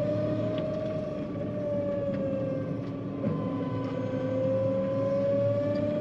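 John Deere 9500 combine driving on the road, heard from inside the cab: engine running steadily under a low hum, with a strong whine that sinks a little in pitch through the middle and rises again near the end.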